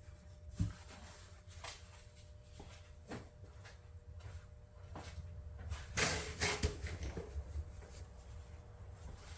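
Scattered light knocks and clicks of small objects being handled on a bench, with a louder scuffing rustle about six seconds in.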